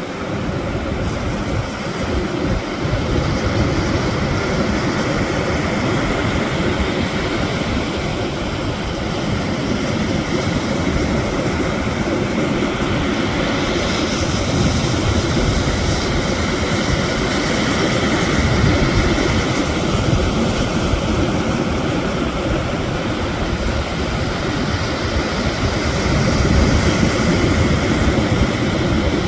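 Sea surf washing over stones: a continuous rush of waves with heavy low rumble from wind on the microphone, swelling louder a couple of times.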